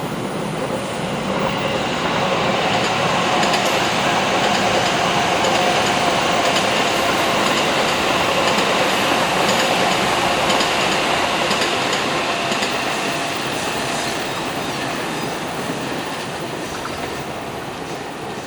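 Electric commuter train running along the line. Its running noise, with a steady whine mixed in, swells over the first couple of seconds, holds, and fades slowly toward the end.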